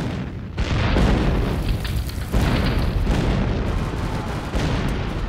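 Explosions: several heavy booms over a continuous deep rumble.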